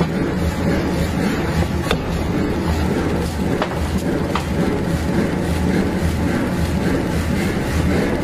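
Steady low rumble of forge-shop machinery, with a few faint, sharp metallic clinks.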